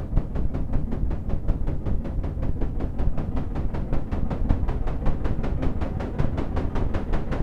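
Synthesized steam-locomotive chuffing from a modular synthesizer: filtered pink noise shaped into rhythmic hissing chuffs, about six a second, quickening slightly.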